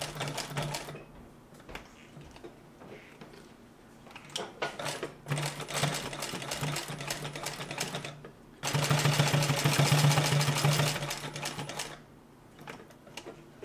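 Consew 229 post-bed triple-feed industrial sewing machine stitching through leather: a rapid mechanical clatter over a steady motor hum. It comes in three runs: one stopping about a second in, one from about five to eight seconds, and a louder one from about nine to twelve seconds, with pauses and a few clicks in between.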